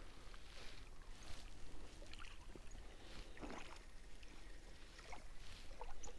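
Faint lapping of lake water at the shore, in a few soft swells, over a low steady rumble.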